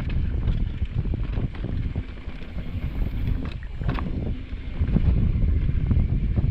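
Wind buffeting the microphone of a bike-mounted or rider-worn camera during a fast trail descent, over the crunch of tyres on dry, loose dirt and the bike rattling over bumps in frequent sharp knocks.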